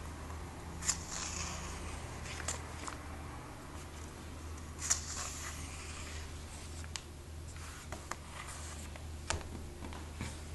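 Pages of a glossy comic book turned by hand: a few soft paper swishes and flicks, the sharpest about one, five and nine seconds in, over a steady low hum.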